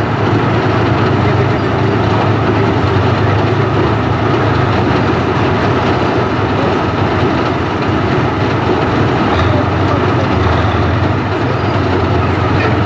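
WZT-2 armoured recovery vehicle's V-12 tank diesel running hard as the tracked vehicle maneuvers, with the steel tracks clattering. The engine note dips briefly about eight seconds in, then picks up again.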